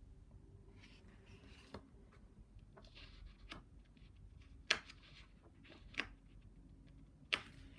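Faint rustling of a hardcover picture book's pages as a hand tries to separate and turn a page that sticks, with several sharp ticks and clicks of the paper.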